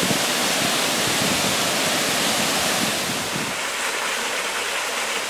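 Waterfall rushing: a steady, full-range rush of falling water, its low rumble thinning a little after about three and a half seconds.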